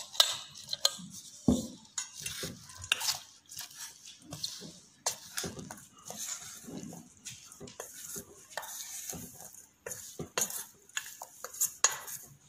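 A metal spoon stirring sliced baby corn through a cornflour and spice coating in a stainless steel bowl: irregular clinks and scrapes of spoon on steel, with a sharper knock about a second and a half in.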